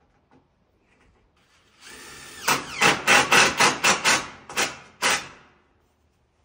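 Cordless drill whirring briefly, then driving a screw into timber in about nine short, loud bursts.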